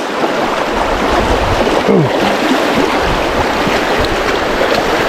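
River water rushing steadily over rocks, a loud, even rush with no pauses. A short exclamation is heard about two seconds in.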